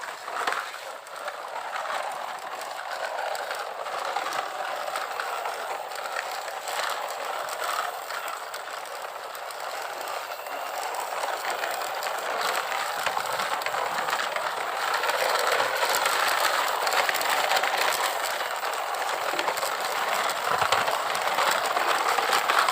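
Small plastic toy vehicle mechanisms clattering and clicking, a steady rattle that grows somewhat louder in the second half.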